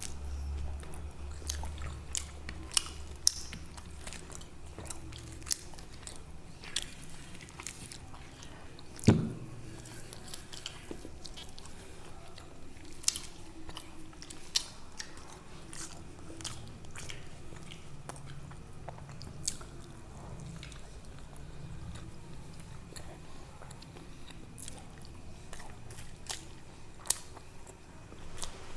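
Close-miked eating sounds: biting into and chewing luchi, the soft fried puffed flatbread, with scattered wet mouth clicks and smacks. A single loud thump about nine seconds in.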